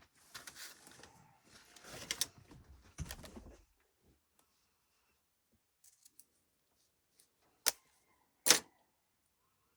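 Hands handling small craft items on a desk: three scraping, rustling bursts in the first few seconds, then two sharp clicks near the end.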